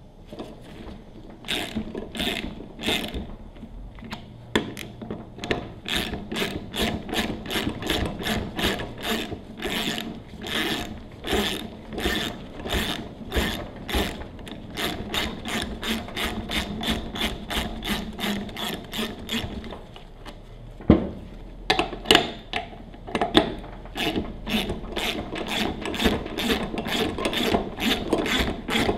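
Socket ratchet wrench clicking in quick repeated strokes, about two clicks a second, as bolts are backed out of an axial cam pressure washer pump. The clicking pauses about two-thirds of the way through with a single sharp knock, then resumes.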